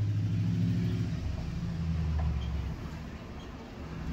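Pickup truck engine running low and slow as it drives past towing a trailer. Its pitch drops a step about a second in and again near three seconds, and it fades slightly near the end.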